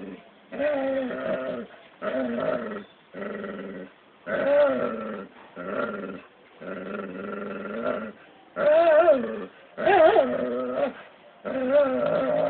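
A dog and cat growling and yowling at each other in a standoff. It is a run of drawn-out pitched calls, each half a second to a second and a half long, with short gaps between them. The pitch wavers in the loudest calls, about two-thirds of the way through.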